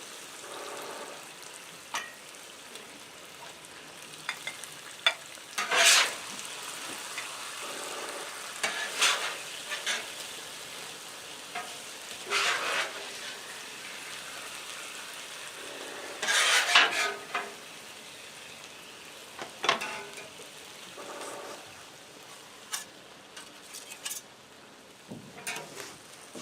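Sauced chicken sizzling steadily on a hot steel flat-top griddle, with repeated bursts of a metal spatula scraping across the griddle surface as the food is scooped up.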